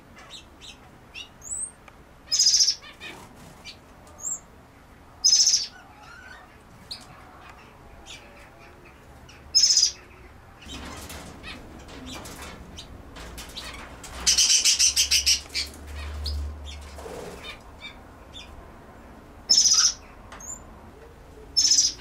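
Small aviary birds calling: loud, short, high chirps every few seconds over fainter twittering. About two-thirds of the way through comes a fluttering burst of wing flaps lasting about two seconds.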